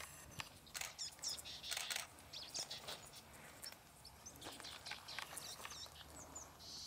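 Faint high bird chirps, a few short calls, over scattered light rustling and crackling on gravel and sand.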